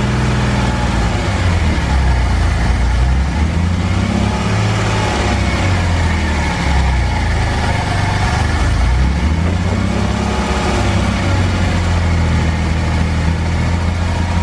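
BMW E46 330i's engine running, its pitch rising and falling twice, about four seconds in and again about nine seconds in.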